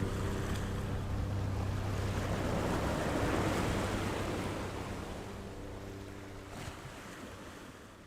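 Sea waves washing ashore. One wave swells and breaks a few seconds in, over a steady low engine hum, and the sound fades out near the end.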